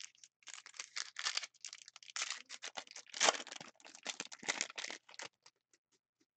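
Foil hockey-card pack being torn open by hand, its wrapper crinkling in a quick, irregular run of crackles that stops about five seconds in.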